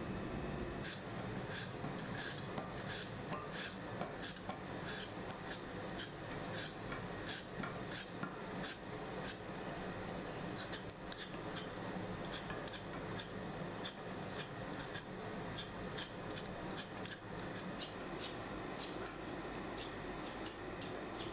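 Repeated short rasping strokes, irregular at about two or three a second, over a steady faint background.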